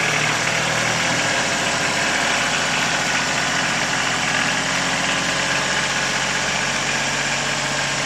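Compact tractor's diesel engine running steadily while the tractor drives slowly along.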